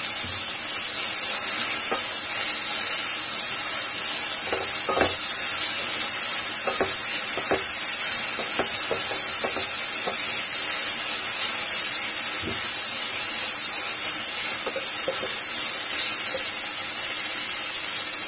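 Minced meat sizzling steadily in oil in a frying pan, with a spatula knocking and scraping against the pan every so often as it is stirred.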